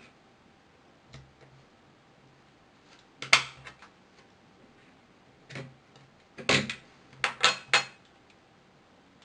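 Small metal hand tools clinking and clattering against the work surface and phone parts: a faint click, a sharp clatter, then a quick cluster of four or five knocks near the end.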